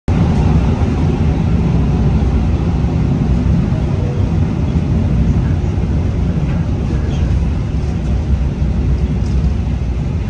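Steady, loud running noise heard from inside the passenger compartment of a moving suburban electric multiple unit: the rumble of wheels on the track and the running gear, heaviest in the low end. It starts abruptly at the very beginning.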